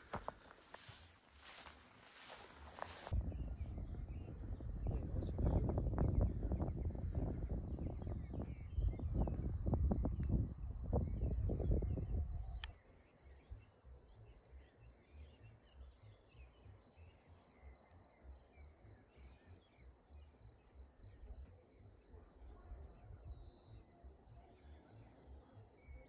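Crickets trilling steadily at one high pitch. From about three seconds in, a louder low rumbling, rustling noise covers it, then stops abruptly about twelve seconds in, leaving the trill.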